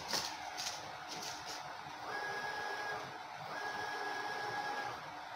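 Stepper motors of a CNC router driving the spindle carriage along its lead screws in two short moves, each a steady whine of about a second. A few sharp clicks come before the moves.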